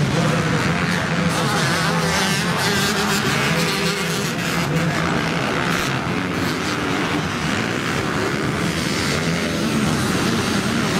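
Several motocross dirt bikes racing past on a grass-and-dirt track, a mix of four-stroke and two-stroke engines revving up and down through the gears.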